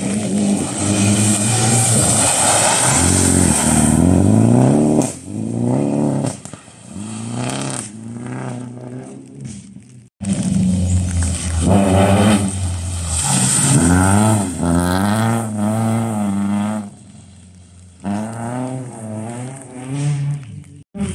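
Rally car engines accelerating hard past, the pitch climbing and then dropping with each gear change, fading away between passes. The sound cuts off abruptly about ten seconds in and picks up again with another run.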